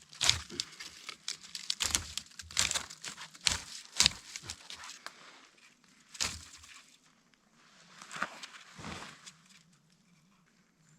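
Irregular rustling and sharp crackling of brush and twigs being handled up close while a brass-wire rabbit snare is set on a trail; it dies down after about seven seconds.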